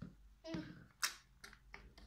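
A few sharp plastic clicks and knocks as a clear plastic bottle and its blue screw cap are handled and twisted, the loudest about a second in.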